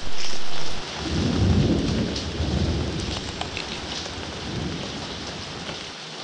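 Steady rain with a roll of thunder that rumbles in about a second in and fades away over the next few seconds.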